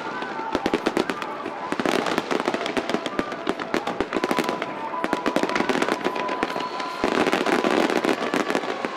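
Fireworks display: many aerial shells bursting and crackling in rapid, overlapping succession, with a few whistling tones above the crackle. The barrage gets louder and denser about seven seconds in.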